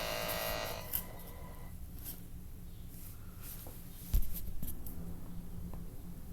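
Quiet handling of the doll's cardboard and plastic packaging: light rubbing and scraping with small clicks, and one soft knock about four seconds in.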